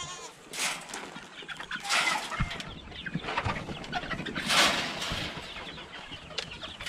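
A pen of young Buckeye and Wyandotte bantam chickens clucking, with three louder bursts of noise among the calls.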